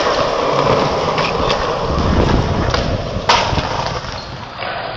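Skateboard wheels rolling on concrete with a continuous rumble, broken by sharp clacks of the board; the loudest clack comes about three seconds in.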